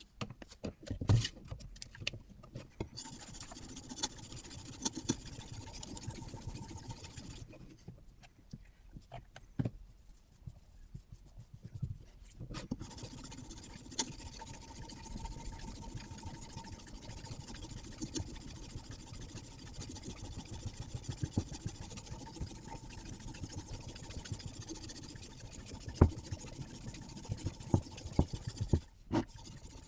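Sharpening stone on a Hapstone RS guided sharpener drawn along a carbon-steel knife blade: steady scraping, with a pause of a few seconds about a third of the way in and scattered clicks and knocks.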